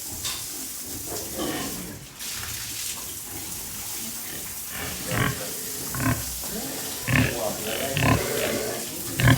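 Pigs grunting: a run of short, loud grunts about a second apart in the second half.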